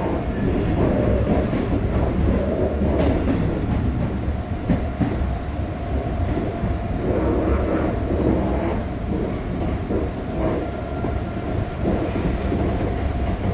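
Cabin noise inside a retrofitted resistor-control Line 1 electric multiple unit train on the move: a steady low rumble of wheels on the rails, with scattered light clicks.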